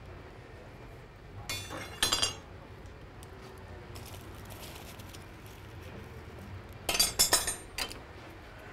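Iron tools and bars clinking against each other in a blacksmith's coal forge as the fire is tended. There are two short clusters of ringing metallic clinks, one about a second and a half in and one near the end.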